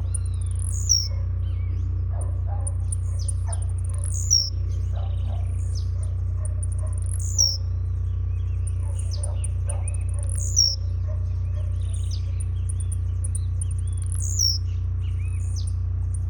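Blue-black grassquit (tiziu) singing: five short, high, buzzy calls that sweep downward, about one every three seconds, with rapid high ticking between them. A steady low hum runs underneath.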